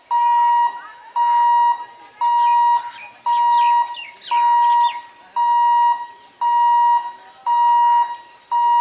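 Level crossing warning buzzer sounding as a train approaches: a loud, steady, high-pitched beep repeating about once a second, each beep about half a second long.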